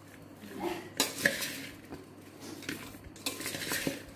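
Salted carrot strips being tossed and stirred in a bowl, an irregular rustling clatter with a few sharp knocks against the vessel about a second in and a busier stretch near the end.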